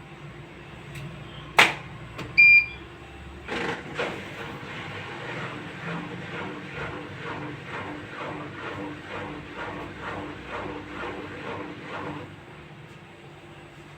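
Bosch washing machine in test mode: a click, then a short electronic beep, then the machine runs with a steady mechanical rhythm of about two pulses a second over a low hum, which stops suddenly near the end.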